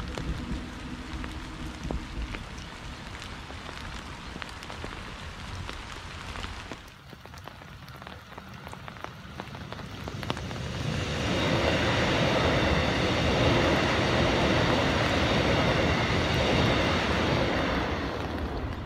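Rain pattering on foliage as electric suburban trains run past. About eleven seconds in, a second train comes by close and louder, with a steady hum and rail noise that eases off near the end.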